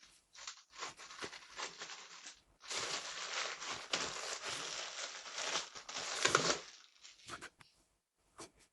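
Packaging being unwrapped by hand: crinkling, rustling and tearing, sparse at first, busiest in the middle, then dying away to a few faint ticks after about seven seconds.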